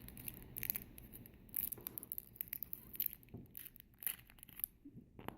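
Hands prying at a tight surprise egg to get it open: faint, irregular crinkling, scraping and small clicks of handled plastic.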